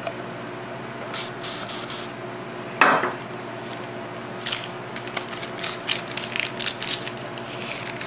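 An aerosol can of CRC battery terminal protector sprayed into a plastic cup in a short, sputtering hiss about a second in, then a dull knock a little later, followed by light clicks and rubbing of handling on the table.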